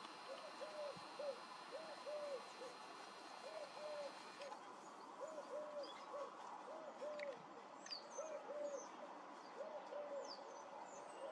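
A dove cooing over and over, a short phrase of about three notes repeated every second or so. Faint chirps of small birds come in during the second half.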